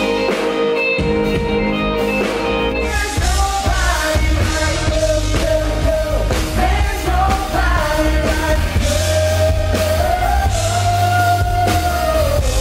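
Live worship band: singers on microphones with drums, bass guitar and keyboard. Held keyboard chords give way about three seconds in to a sung melody over a steady bass and drum beat.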